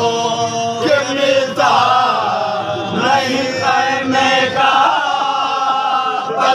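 A group of men chanting a noha, a Muharram lament, led by a reciter reading the verses, the others singing along and holding long drawn-out notes.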